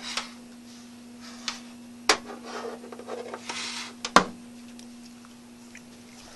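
Handling sounds: rustling and rubbing with two sharp clicks, about two seconds apart, over a steady low hum.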